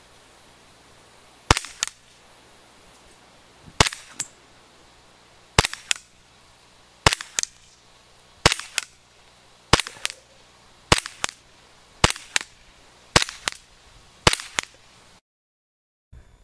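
Tokyo Marui Beretta PX4 gas blowback airsoft pistol firing ten single shots, about one every one to two seconds and coming a little quicker towards the end. Each shot is a sharp pop followed about a third of a second later by a fainter click.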